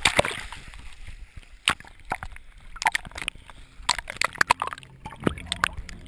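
A snorkeler splashes into the sea, then the sound goes underwater: gurgling and bubbling with scattered sharp clicks and knocks.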